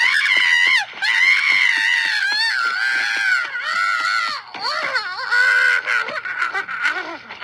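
A high-pitched cartoon character's voice screaming in long, wavering wails, with short breaks between them; the pitch sinks somewhat in the second half.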